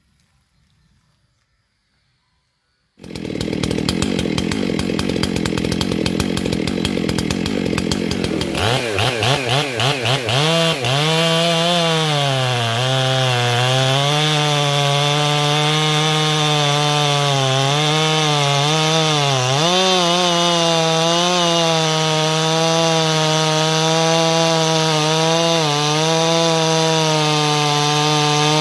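Stihl MS 651 two-stroke chainsaw with a long 75 cm bar, cutting through a log at full throttle. It starts abruptly about three seconds in. Its engine note then dips in pitch several times as the chain bites into the wood under load, and recovers each time.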